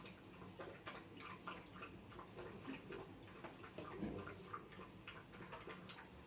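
Pekingese dog lapping water from a bowl: faint, quick wet laps about three a second, with a slightly louder knock about four seconds in.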